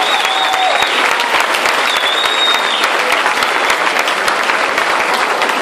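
Congregation applauding, a dense steady clapping, with a few high held calls over it in the first three seconds.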